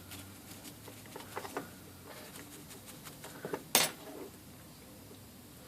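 Light metallic clicks and taps from small tools and parts being handled at a workbench, with one sharper click a little over halfway through.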